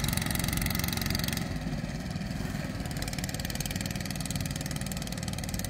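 An engine idling steadily, with a faint high hiss that drops away about a second and a half in.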